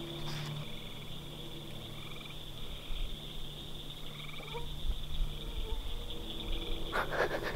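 A person breaking wind: a short fart about four and a half seconds in. Underneath, a steady night chorus of frogs and trilling insects.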